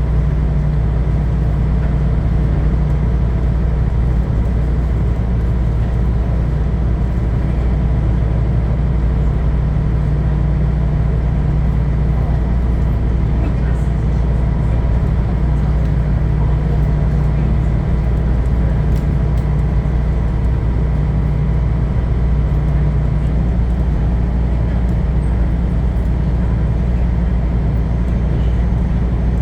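Sightseeing cruise boat's engine running steadily: a loud, constant low drone heard from on board.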